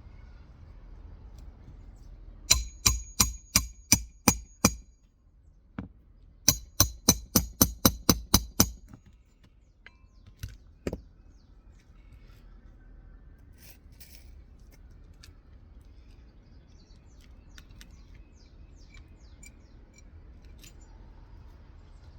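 Hammer driving roofing nails to fasten a replacement shingle: about seven ringing blows, a short pause, then about nine quicker blows, followed by a few lone taps.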